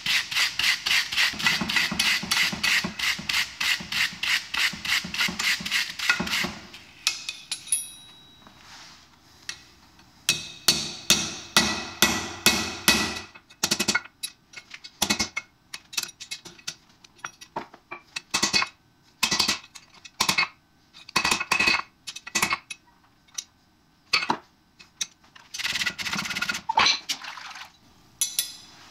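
Hand hammer striking a steel rod held in tongs on an anvil, in quick runs of blows with the anvil ringing, broken by pauses and scattered single strikes.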